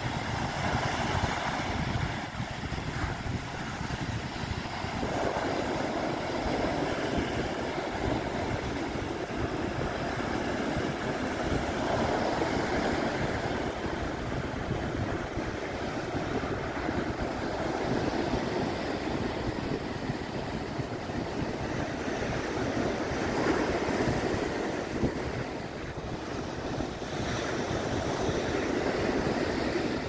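Sea surf breaking and washing up on the shore in slow swells, with wind rumbling on the microphone.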